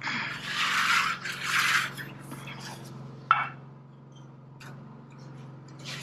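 Aluminum trim stock scraping and rubbing as it is worked in a sheet-metal brake: two long scrapes in the first two seconds, then a single sharp metallic clink a little past three seconds, over a steady low hum.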